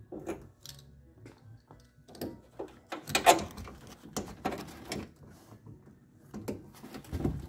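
An 8 mm hand driver working the window motor's mounting screws inside a steel truck door: irregular clicks, scrapes and knocks of tool and metal, loudest about three seconds in.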